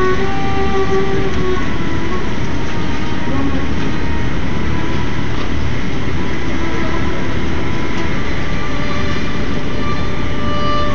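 Solo violin playing slow held notes that are plain near the start and near the end, largely buried under a loud, steady rumble of background noise.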